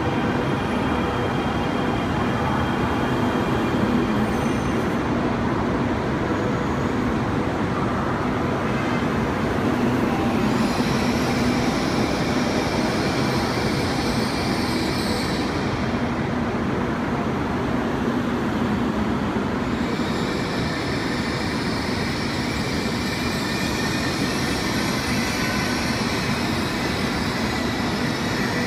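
CRH380AL high-speed electric multiple unit rolling slowly along the platform and braking to a stop, with a steady rumble of wheels and running gear and a faint steady hum of electric traction equipment. A high hiss joins in about ten seconds in, drops out, and comes back for the last third.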